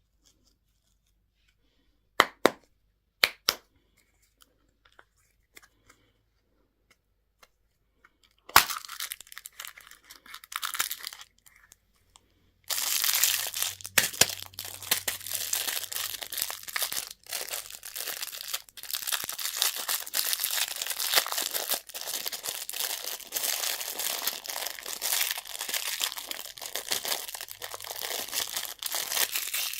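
Candy packaging being opened by hand: a few sharp clicks, a crack about eight seconds in, then from about thirteen seconds on continuous crinkling and tearing of the wrapper.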